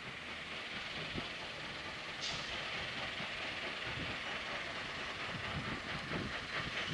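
A steady rushing rumble that slowly grows louder, with a brief high chirp a little after two seconds and irregular low thumps in the second half.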